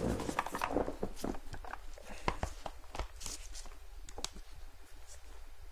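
Handling and movement noises: scattered light knocks, clicks and rustles as equipment is fetched and set out.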